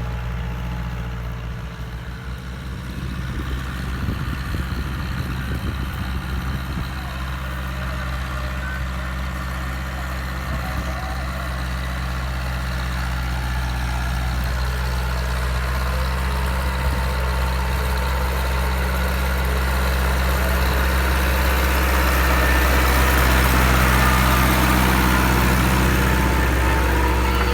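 Massey Ferguson 274S tractor's diesel engine running at a steady speed, growing louder over the last several seconds.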